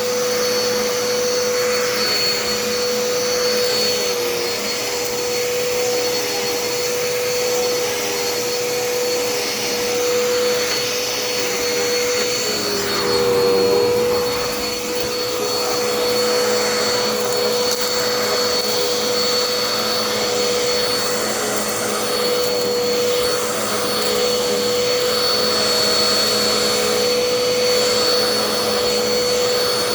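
Dirt Devil Endura Reach vacuum cleaner running steadily, a motor whine over rushing air; its pitch dips briefly about halfway through while it is pushed over the floor.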